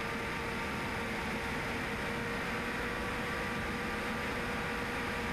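Steady cockpit noise of a MiG-29 fighter in flight: an even hiss with a faint steady hum under it.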